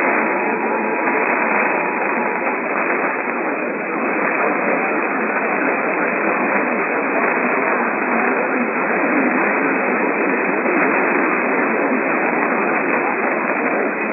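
Steady radio static hiss, band-limited like a weak signal heard through a radio receiver. Under it the faint two-tone EAS attention signal sounds and cuts off about two and a half seconds in.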